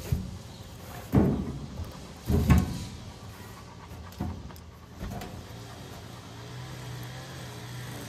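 Rolls of baler twine being set into a baler's sheet-metal twine box: a few sharp knocks and thumps, two loud ones in the first few seconds and smaller ones after, with a faint steady low hum in the background later on.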